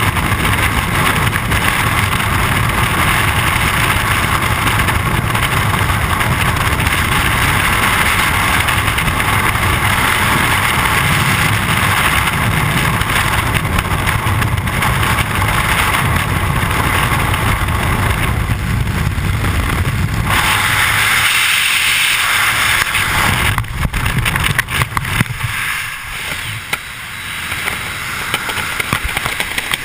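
Loud, steady freefall wind rushing and buffeting over the camera microphone during a skydive. In the last few seconds the rush drops and turns uneven, as freefall ends with the parachute being deployed.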